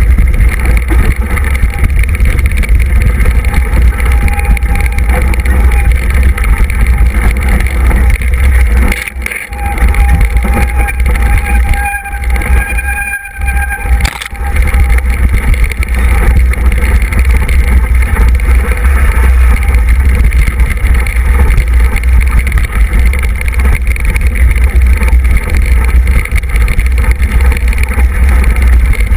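Wind buffeting and rattling on a handlebar-mounted camera as a mountain bike descends fast over a dirt trail: a loud, steady rush with a heavy low rumble that briefly drops away twice near the middle.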